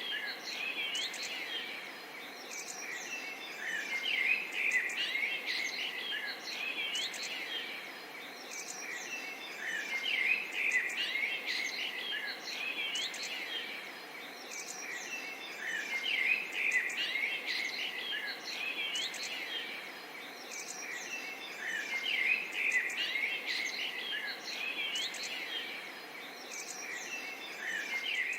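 A chorus of small birds chirping and twittering over a steady hiss, swelling and fading every six seconds or so.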